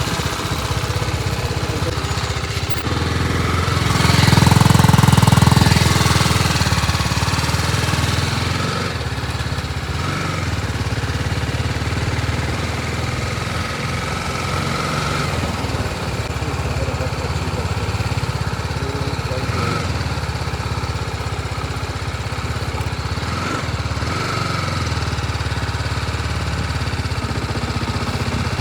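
BMW G 310 RR's single-cylinder engine idling steadily, swelling louder for a couple of seconds about four seconds in.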